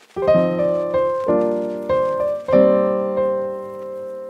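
Background piano music: four chords struck in turn, the last held and fading away.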